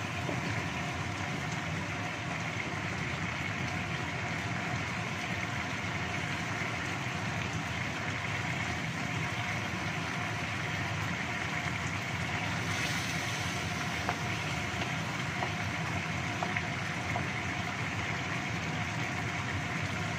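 Chicken simmering in sweet soy sauce in a wok over a gas burner: a steady hiss and low rumble, with a few light knocks of a wooden spatula stirring.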